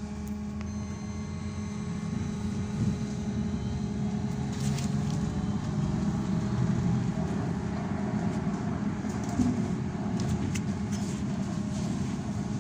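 Inside a BKM 321 trolleybus on the move: steady low rumble of the body and tyres on the road, with a faint high electric whine for the first few seconds and a few light rattles and clicks.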